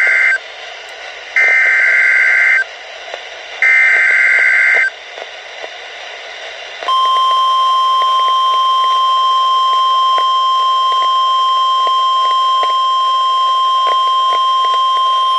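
NOAA Weather Radio alert coming through a weather alert radio's speaker. First come three short bursts of warbling SAME data tones, about a second apart; the first is ending as the sound begins. About seven seconds in, the long steady 1050 Hz warning alarm tone starts and holds. Together they are the coded header and attention signal that announce a severe thunderstorm warning.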